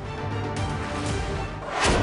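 Background music for a news bulletin, with steady held chords. Near the end it swells into a rising whoosh.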